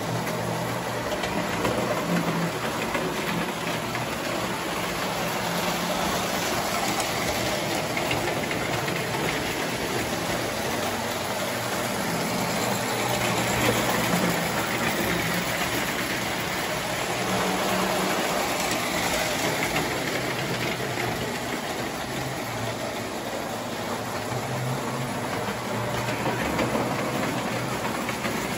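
Prewar tinplate electric toy trains running on three-rail track: a steady metallic clatter of wheels on the rails over a low motor hum, a little louder about halfway through as a train of passenger cars passes close.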